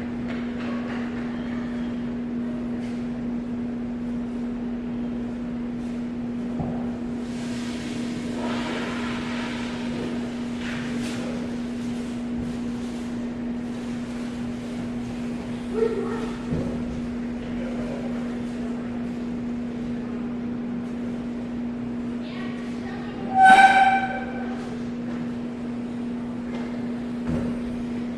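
A steady low hum at one pitch, with some rustling and a few light knocks. Near the end comes one short, loud, high-pitched call or whistle.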